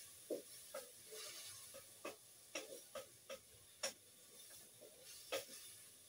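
Faint kitchen-utensil clicks and knocks, about ten of them at irregular intervals over six seconds.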